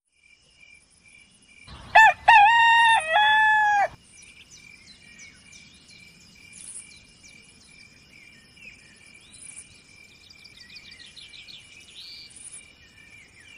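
A rooster crowing once, about two seconds in, for about two seconds, with a rising start and then a held call that steps down. After it come faint bird chirps over a steady high hum.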